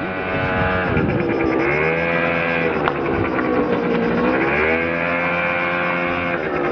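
Motor scooter engine running under throttle, a steady high whine whose pitch drops and rises again twice as the throttle is eased off and opened back up.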